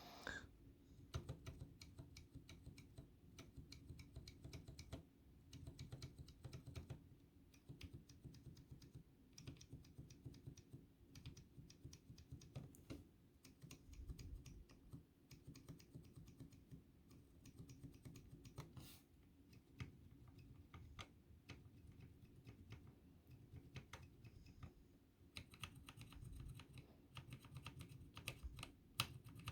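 Zilent tactile and Gateron Brown mechanical keyboard switches pressed gently one after another, loose in an empty board with no solder: many faint, quick clicks and light rubbing strokes. The Gateron Browns are heard as really scratchy, the stock Zilents as smoother.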